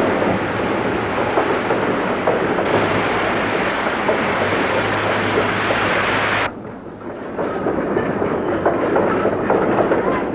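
Steam train running on rails, a steady rumble with wheels clicking over the rail joints. The sound drops away suddenly about six and a half seconds in, then the clicking wheels come back about a second later.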